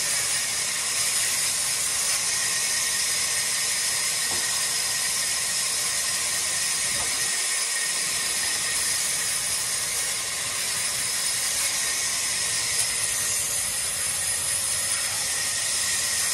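Large vertical band saw running and cutting through a wooden slab: a steady high hiss of blade and wood, with a faint high whine, unbroken throughout.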